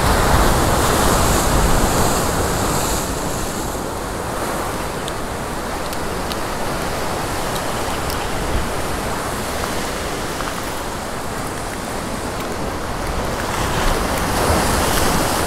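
Ocean surf surging and breaking against rocks, a steady loud wash that swells in the first few seconds and again near the end, with wind buffeting the microphone.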